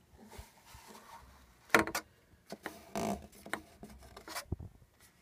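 Hollow plastic waterproof quadcopter frame being handled: a few sharp clicks and knocks of the shell, the loudest a little under two seconds in, with light rubbing between them.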